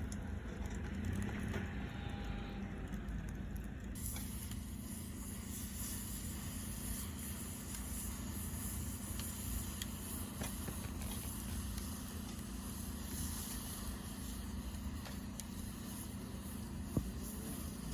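Wood fire in a fire pit crackling with scattered small pops and one sharper snap near the end, over a steady low hum.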